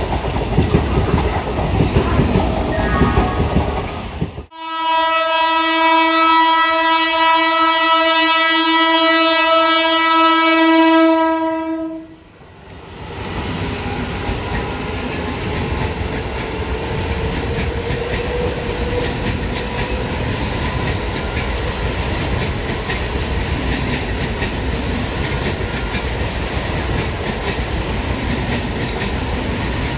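Eastern Railway EMU (electric multiple unit) local trains running on the tracks. About four seconds in, a train horn sounds one long steady note for about seven seconds and cuts off. Then a passing EMU runs by with steady rolling noise.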